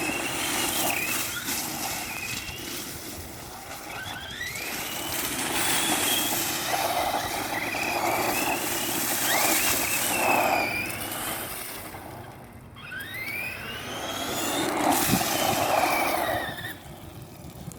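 Electric motor of a Redcat Volcano EPX Pro RC monster truck, a brushless motor, whining up and falling in pitch again and again as the truck speeds up and slows, over a steady rushing noise.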